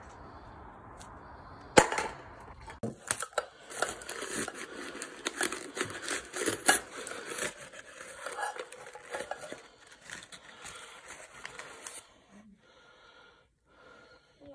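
A single sharp thud about two seconds in, then crumpled brown paper packing crinkling and rustling for about ten seconds as it is pulled out of a steel soup can.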